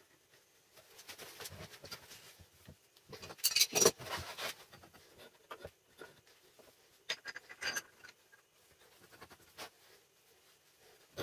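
Hand work at a workbench: irregular scrapes, rubs and light knocks of parts being handled. The busiest, loudest stretch comes about four seconds in, with a shorter cluster near eight seconds.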